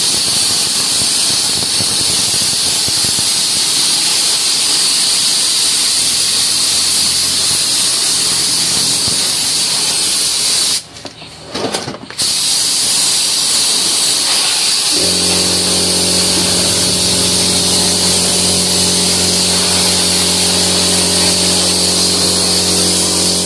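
Gravity-feed air spray gun hissing steadily as it sprays primer onto a brake caliper, the trigger let off for about a second near the middle. A low steady hum starts about two-thirds of the way through and runs under the hiss.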